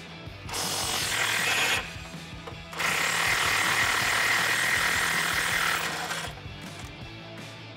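Cordless impact wrench with an 18 mm socket spinning the nuts off the front bumper's mounting studs on the frame rail. It runs in two goes: a short burst about half a second in, then a longer run from about three to six seconds. Background music plays underneath.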